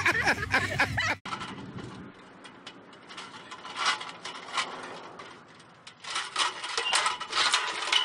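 Light metallic clinks and rattles from an aluminium ladder as a man climbs it while it stands upright without support, scattered over faint background noise and busier near the end. In the first second, shouting voices cut off abruptly.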